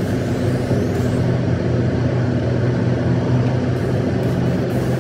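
Steady road and engine noise heard from inside a car's cabin while driving through a road tunnel: a loud, even drone with a low hum.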